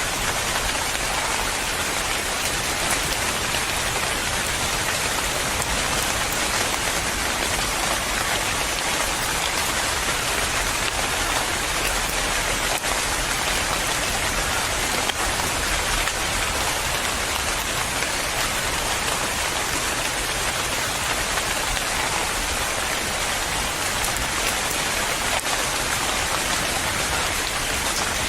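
Steady rain falling and pattering on a surface, an even, unbroken hiss of many drops with no thunder.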